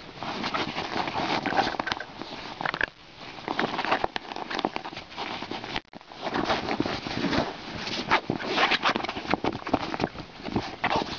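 Cairn terrier digging and scratching at the fabric seat of a folding camp chair: rapid, irregular scratching and rustling of claws on cloth, pausing briefly twice.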